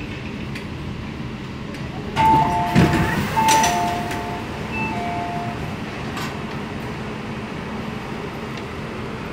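MTR K-Train door-closing chime, a run of alternating high and low beeps starting about two seconds in and lasting about three seconds. It overlaps a loud rush of the doors sliding shut. A steady hum of the standing train runs underneath.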